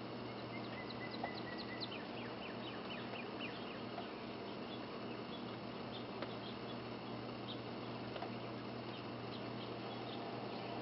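Quiet outdoor ambience during a snowfall: a steady soft hiss with a low hum, over which many faint, short high chirps and ticks come and go, with a quick run of them about a second in.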